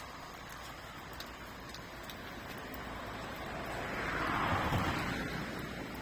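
A car passing on a road: tyre and engine noise swells to a peak about four to five seconds in, then fades away.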